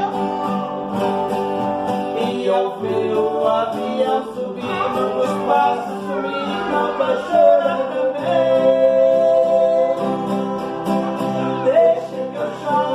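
Music: a Brazilian country ballad, with singing and guitar accompaniment.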